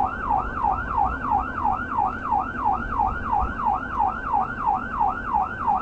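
Police car's electronic siren in yelp mode: a rapid rising-and-falling wail, about four sweeps a second, over the low rumble of the cruiser's engine and tyres at speed.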